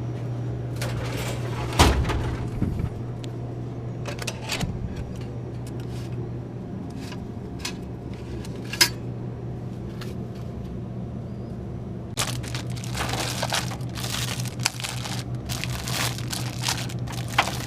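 Steady low hum of a car in motion, heard from inside the cabin. There is a sharp knock about two seconds in, a few single clicks, and a stretch of clicking and rustling in the last few seconds.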